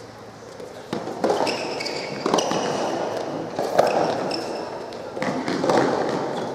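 Soft tennis rally: a soft rubber ball struck back and forth by rackets, about half a dozen sharp hits, echoing in a large indoor hall, with players shouting.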